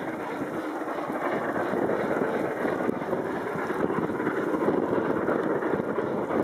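Scots Guardsman, an LMS Royal Scot class three-cylinder 4-6-0 steam locomotive, working hard as it hauls a passenger train past, its exhaust beats running together into a steady rush of sound.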